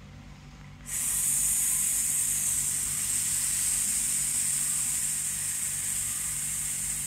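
A woman exhaling a long, steady 'sss' hiss through her teeth: the lung sound of the Qigong Six Healing Sounds breathing exercise. It begins about a second in, after the held breath, and is held without a break.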